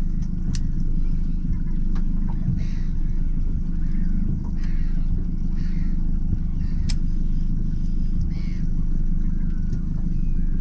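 Small boat's engine idling steadily, with faint seabird cries from birds working a shoal of baitfish above it and a couple of sharp clicks.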